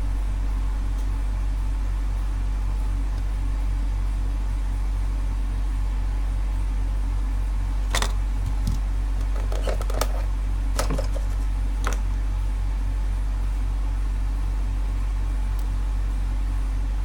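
Steady low electrical hum from the workbench, with a few light clicks and taps about halfway through as wires are handled and worked into the holes of a circuit board.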